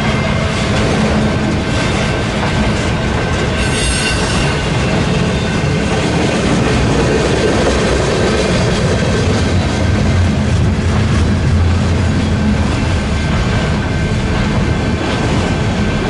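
A freight train's cars (autoracks, boxcars and tank cars) rolling steadily past, their steel wheels rumbling and clacking on the rails with a faint wheel squeal. A brief high screech comes about four seconds in.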